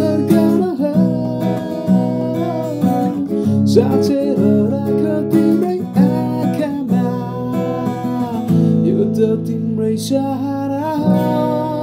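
Acoustic guitar strummed in chords with a man singing along over it.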